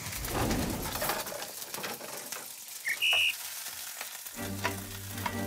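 Rolls of thinly sliced beef brisket sizzling in a nonstick frying pan, loudest in the first couple of seconds. Two short high tones come about three seconds in, and a steady low tone from a little past four seconds.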